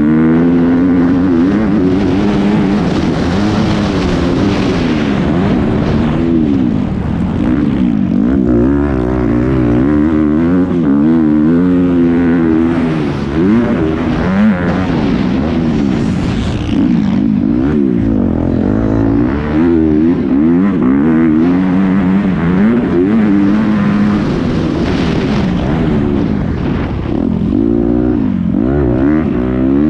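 Motocross bike's engine heard up close from on board while racing, revving up and dropping off again and again as the rider accelerates, shifts and rolls off around the dirt track.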